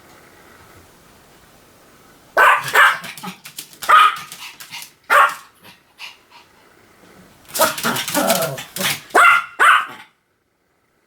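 Pomeranian barking in short separate barks starting about two seconds in, then a quick run of barks, then cutting off abruptly about a second before the end.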